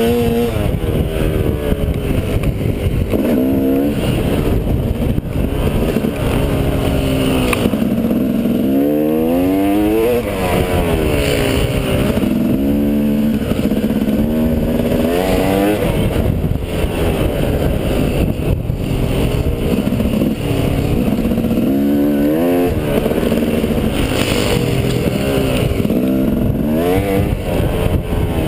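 Dirt bike engine revving up and falling back over and over as the throttle is worked along a trail, heard from the rider's helmet with a steady low rumble beneath.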